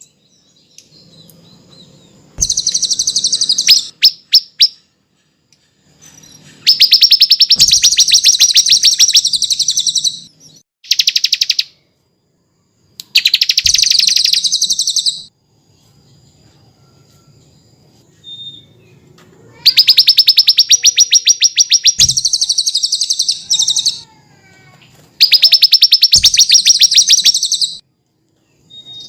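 Small songbird singing in about six loud phrases of rapid, very high trilled notes, each a second to a few seconds long, with short pauses between them.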